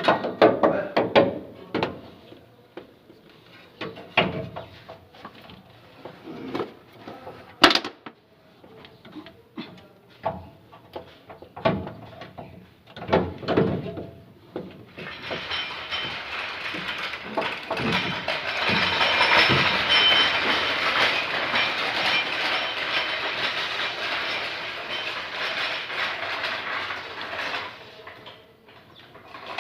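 Hand tools knocking and clicking on metal while a replacement starter motor is fitted to a Toyota Hilux. From about halfway in until near the end there is a long stretch of steady, fast mechanical rattling.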